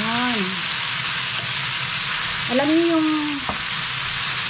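Chayote and ground meat sizzling in a frying pan with a steady hiss while being stirred with a wooden spatula; a single sharp knock about three and a half seconds in.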